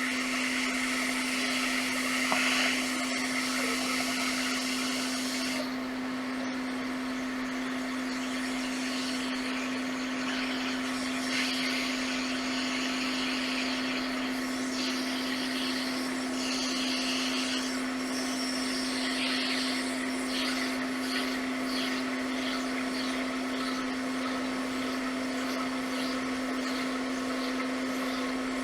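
Hot-air rework station blowing steadily, a rushing air noise with a constant hum, while reflowing the replacement USB-C power-delivery controller chip (U3200, CD3215C00) onto a MacBook Air logic board.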